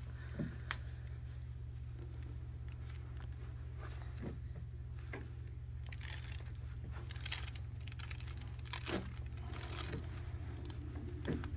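Faint rustling and scattered small clicks of a patient and the padded treatment table during a low-back stretch, over a steady low hum.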